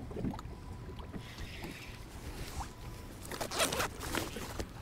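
Choppy lake water slapping against a kayak's hull, with wind on the microphone, and a cluster of short scratchy rustles a little past three seconds in.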